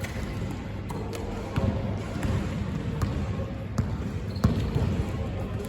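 A basketball bouncing on a hard indoor court: irregular low thuds as the ball is dribbled and played.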